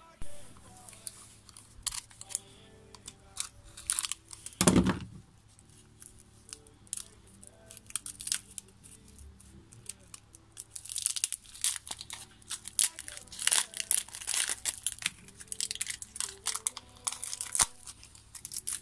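Old tape wrapping being peeled and torn off a knife handle, in crackling ripping bursts that come thick and fast in the second half. A loud thump about five seconds in; faint background music underneath.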